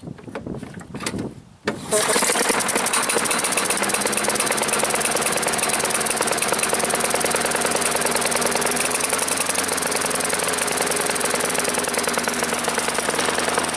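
Small single-cylinder engine of a Toro Personal Pace push mower catching about two seconds in and running steadily with a rapid knock. It doesn't sound good: the engine has gas and water in its oil and smoke coming from the crankcase vent, and the owner takes it to be on its last leg.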